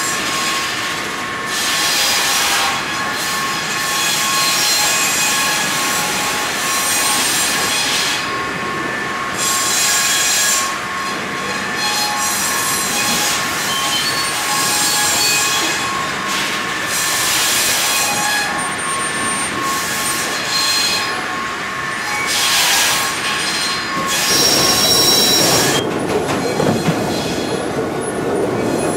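Wood-room log-handling machinery: a large circular log saw and steel log conveyors running, with a steady high whine and irregular, recurring metallic screeching surges as logs move through.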